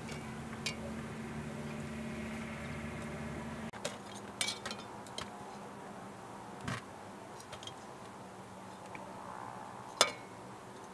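A serving spoon scraping and clinking against a metal pot of rice as it is served, a handful of light clinks in the middle and one sharp, loud clink near the end. A steady low hum underneath stops abruptly a little under four seconds in.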